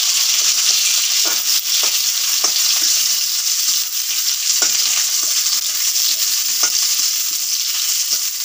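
Shallots, ginger, garlic and split tomatoes sizzling as they sauté in a hot cheenachatti (Indian wok). A spatula stirs them, knocking against the pan now and then.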